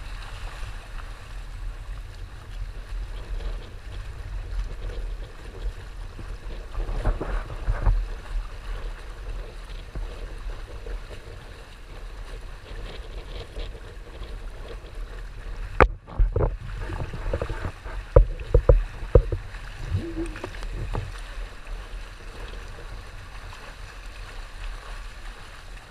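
Wind buffeting the microphone over water rushing and splashing along the rotomolded polyethylene hulls of a Hobie Tandem Island trimaran sailing in gusty wind. A cluster of sharp thumps comes a little past halfway.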